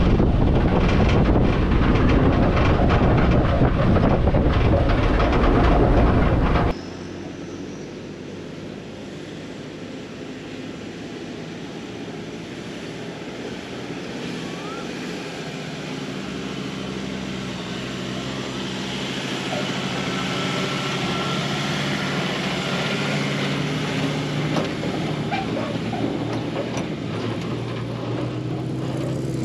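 Wind buffeting and rumble from a camera riding on the side of a towed boat trailer on a dirt track, cutting off suddenly about seven seconds in. Then a Ford Ranger's engine, towing a boat across soft sand, growing steadily louder as it approaches.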